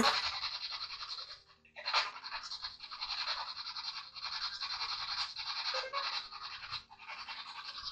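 Steady crackling static hiss with two brief dropouts, one before the two-second mark and one near the end.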